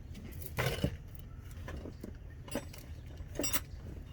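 Metal hand tools clinking as a wrench is handled and fitted: a few short metallic clinks and clanks, the loudest about half a second in.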